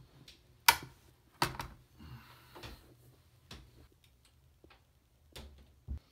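Scattered sharp clicks and knocks of things being handled in a small bathroom, the loudest about a second in and two more close together near the end.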